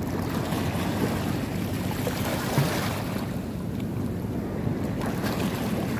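Steady wind blowing on the microphone, with small sea waves washing.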